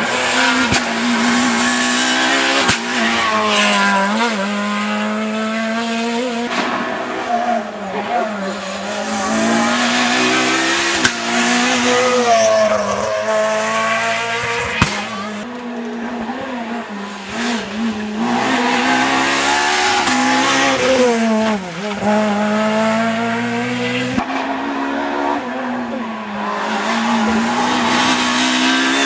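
Rally cars passing one after another at full throttle on a tarmac stage: high-revving engines whose pitch drops and climbs again through gear changes as each car brakes into the bend and accelerates away. There are two sharp cracks in the middle of the run.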